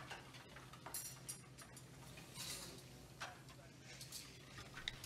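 Quiet room tone with a low steady hum and a few faint, irregular ticks.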